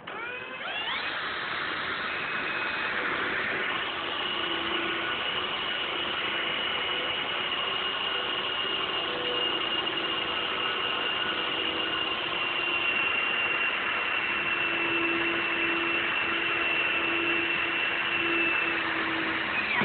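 Power drill spinning up with a rising whine, then running steadily under load with a high squeal as it drives a screw into metal, stopping suddenly near the end.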